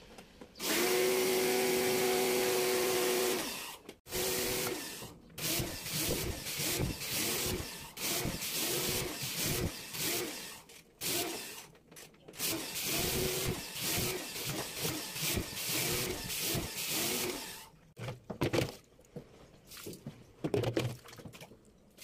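Electric drill with a socket bit, its motor whining steadily for about three seconds near the start, then run in many short on-off bursts, as it turns the bolts at the centre hub of a top-load washing machine's tub.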